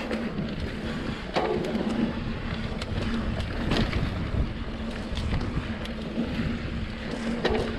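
Norco Range VLT electric mountain bike riding a dirt trail: tyre rumble and wind noise on the microphone, with sharp knocks and rattles as the bike hits bumps, three of them standing out.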